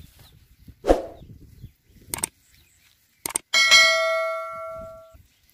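A thump about a second in, then clicks and a bright bell ding: the stock sound effect of an on-screen subscribe-button animation. The ding rings out for about a second and a half before fading.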